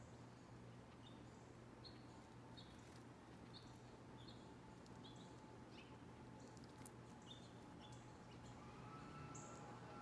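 Fledgling downy woodpecker begging calls: a faint string of short, high chirps, about one or two a second.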